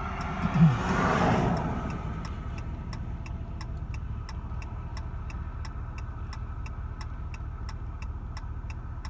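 A stopped vehicle's engine idling, with the indicator flasher clicking steadily at about three clicks a second. Another vehicle passes about a second in, its noise swelling and fading.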